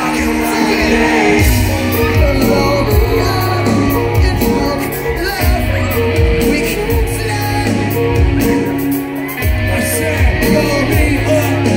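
Live rock song played loudly through a festival sound system, with singing and the crowd shouting along.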